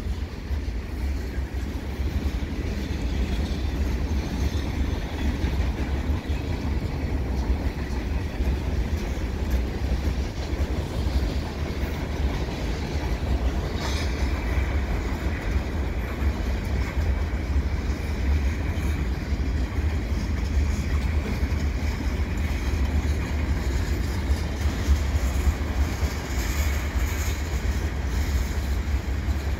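Freight train of boxcars and tank cars rolling slowly past: a steady rumble of wheels on the rails. A faint steady high tone comes in about halfway through.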